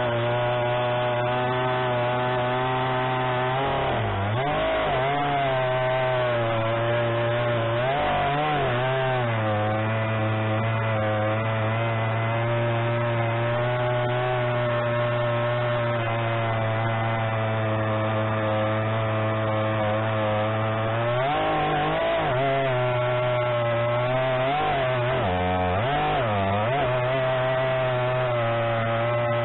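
Gasoline chainsaw running at high revs while cutting through a log. Its pitch sags and recovers a few times as the chain loads up in the wood, most unsteadily in the last third.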